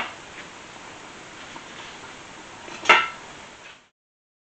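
A faint steady background hiss, then about three seconds in a single sharp, ringing clink of kitchenware. The sound fades out to silence shortly after.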